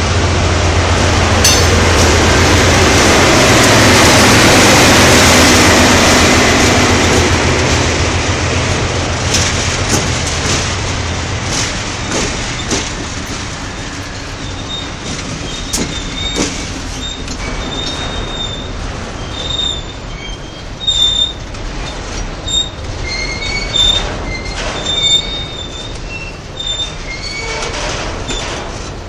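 GE C36 diesel-electric locomotives passing close by, their engines giving a loud steady low drone that dies away about 12 seconds in. Then empty hopper wagons roll past with wheels clicking over the rail and short high-pitched squeals.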